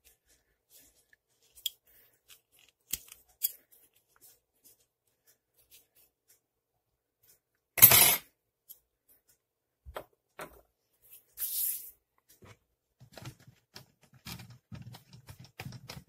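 Light clicks and rustles of a hair dryer's plastic fan impeller being handled and wiped out with a tissue while it is cleaned and degreased. There is one short loud rustle about halfway through, and a briefer hissing rustle a few seconds later.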